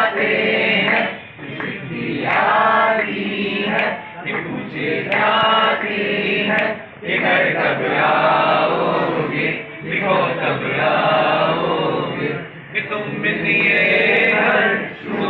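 A group of voices reciting together in unison, chant-like, in phrases a few seconds long with short breaks between them.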